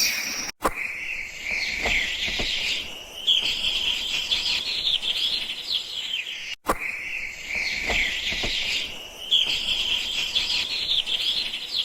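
A dense chorus of jungle birds, many quick, high chirps overlapping continuously. It cuts out for an instant twice, about half a second in and again about halfway through.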